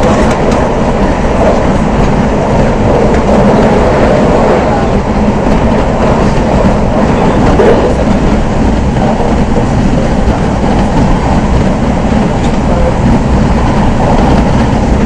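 Steady running noise inside a Z 5600 double-deck electric multiple unit travelling at speed: the rumble of its wheels on the rails and the hum of the moving carriage.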